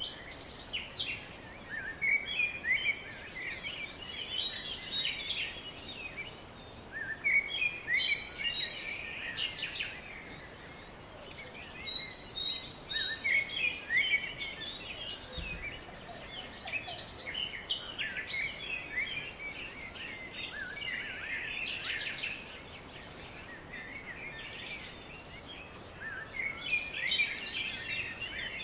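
Birds chirping and trilling, many short overlapping calls coming in bursts every few seconds over a steady background hiss.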